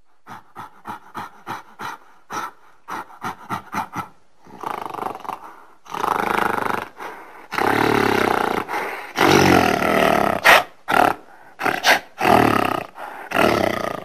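Gorilla calls: a quick run of about a dozen short, sharp barks in the first few seconds, then a series of loud roars of about a second each, loudest in the middle, with a few shorter calls near the end.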